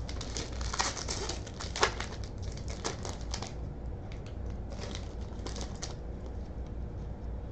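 A pack of baseball cards being torn open and the cards handled and flipped, making crinkling wrapper rustles and small sharp card clicks in several short spells.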